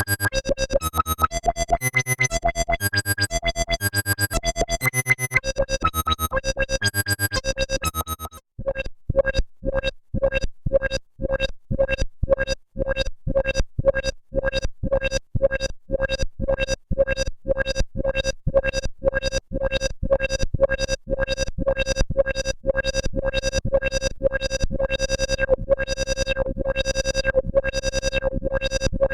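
EDP Wasp monophonic analogue synthesizer playing a fast repeating pattern of short notes with shifting pitches over a low bass. About eight seconds in it breaks off and switches to one note pulsing evenly, about two to three times a second.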